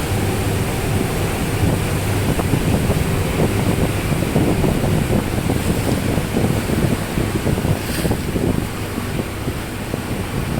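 Ferry's engines running with a steady low hum under the churn of water along the hull, and wind buffeting the microphone.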